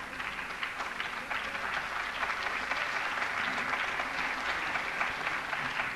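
Audience applauding steadily, growing a little louder about a second and a half in.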